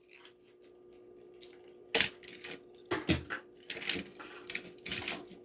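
A few sharp clicks and clinks of a small die-cast toy car being handled and set down, starting about two seconds in, over a faint steady hum.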